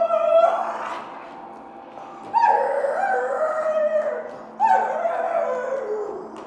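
Howl-like cries: one dies away in the first second, then two more follow. Each starts abruptly on a high note and slides down in pitch over about a second and a half.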